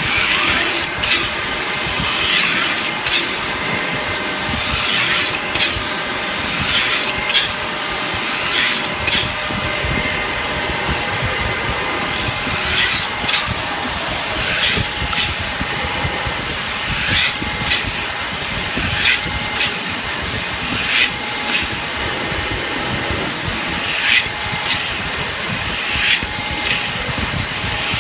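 CNC metal spinning machine running, its spindle turning an iron blank while the roller presses the metal down onto the mandrel: a steady whine and hiss with short sharp ticks every second or two.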